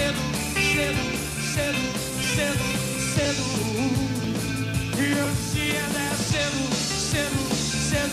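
Rock band playing live, with a male lead voice singing over the band.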